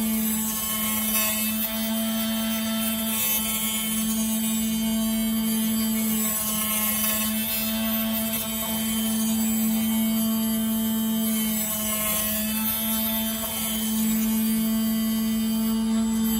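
Automatic phone-screen glass cutting machine running steadily, its motor driving the cutting wire through the screen glass. It makes a constant hum with a high hiss.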